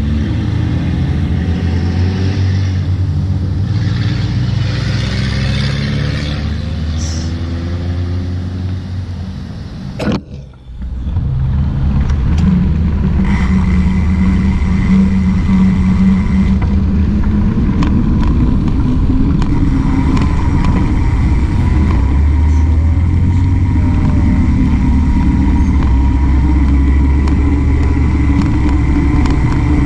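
Car traffic passing and pulling away, heard over heavy wind rumble on a handlebar-mounted camera microphone. After a brief drop in sound about ten seconds in, a steady wind and road rumble as the bicycle rolls along.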